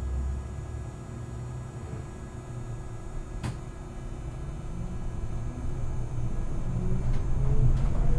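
City bus interior with the steady low rumble of the bus running and a single sharp click about three and a half seconds in. Near the end a rising whine joins in and the rumble grows louder as the bus speeds up.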